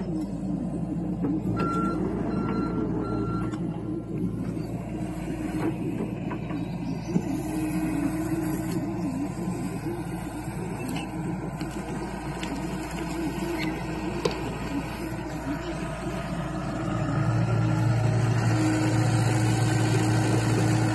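John Deere compact excavator's diesel engine running steadily as it digs and shifts dirt; its travel alarm beeps three times about two seconds in. There is a sharp knock about seven seconds in, and the engine runs louder from about seventeen seconds in.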